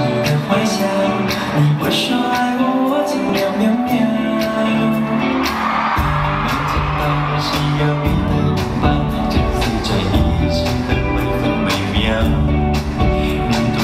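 Pop song playing live over a concert sound system, with singing; a deep bass beat comes in about six seconds in.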